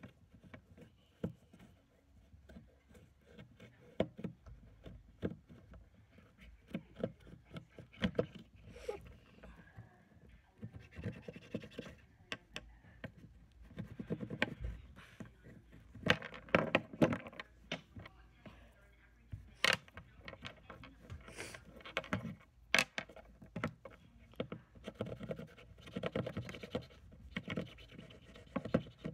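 A utility knife blade scraping and cutting at a pencil, in irregular short scratches and sharp clicks, busier and louder in the second half.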